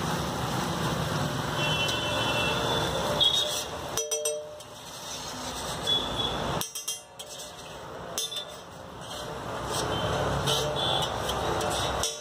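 Busy roadside street noise: steady passing traffic with a few brief high horn toots.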